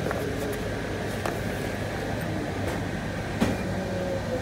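Steady machine hum of a butcher shop's background, with a few light clicks and one sharper knock about three and a half seconds in.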